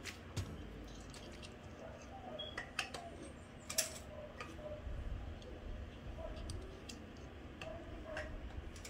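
Light, irregular metallic clicks and taps, a few seconds apart, as small valvetrain parts are handled and set into the bores of a Toyota 2ZZ aluminium cylinder head, over a faint low hum.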